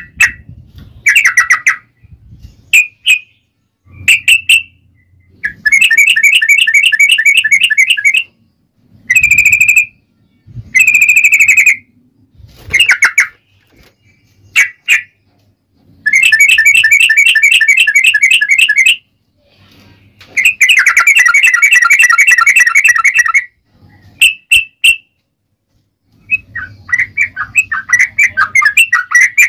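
Yellow-vented bulbul (trucukan) singing loudly in long, rapid rolling trills of quickly repeated notes, each bout lasting a second to a few seconds, with short sharp chirps between them.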